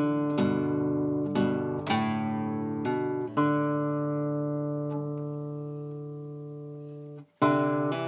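Background music on acoustic guitar: plucked chords every second or so, then one chord left ringing for about four seconds, a brief break, and new strums near the end.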